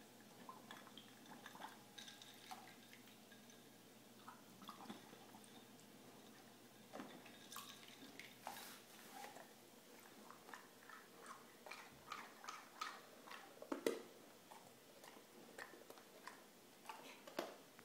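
Cocker spaniel dunking its muzzle in a water bowl for ice cubes: faint, irregular splashing, bubbling and drips. The splashes come more often from about seven seconds in, with the loudest one about fourteen seconds in.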